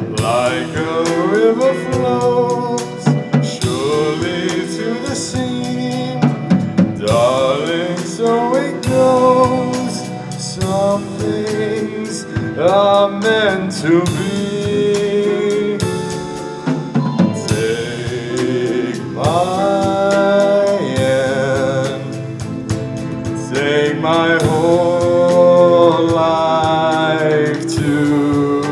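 Live band playing a song: a man sings lead through a PA microphone over guitars and a drum kit, in phrases of a few seconds each.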